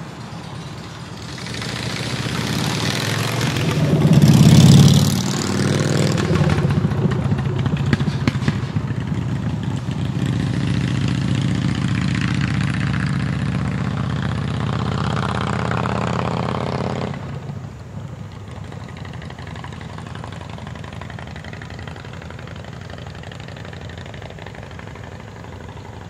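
A motor vehicle's engine and road noise going past, loudest about four seconds in, then dropping away sharply about seventeen seconds in.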